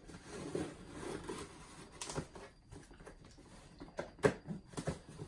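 Cardboard shipping box being opened by hand: the packing tape is cut and pulled, and the cardboard rustles, with scattered sharp clicks and knocks. The loudest knock comes about four seconds in.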